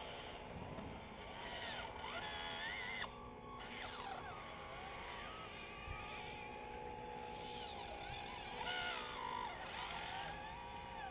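Small electric motors and hydraulic pump of a radio-controlled model excavator whirring, the pitch sliding up and down as the machine works.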